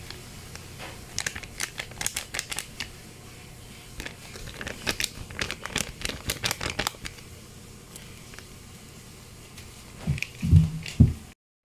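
Plastic sauce sachets crinkling as they are squeezed and crumpled out over the food, in two spells of rapid crackles. Near the end come a few loud dull thumps.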